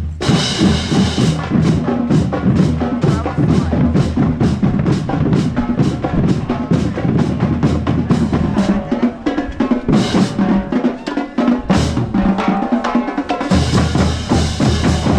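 High school marching band playing, its drumline of bass drums and snare drums keeping a fast, steady beat under the band's notes. The low notes drop out for a few seconds past the middle, then come back.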